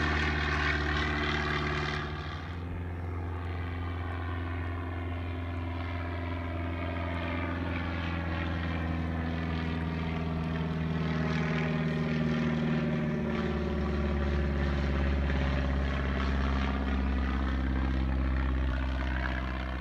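Float plane's piston engine and propeller droning steadily as it flies low overhead. The drone dips slightly about two seconds in, then swells as the plane comes around.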